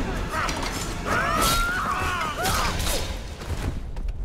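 Close-combat sound effects: a few hard hits about a second apart, with metallic clattering and scraping between them, fading near the end.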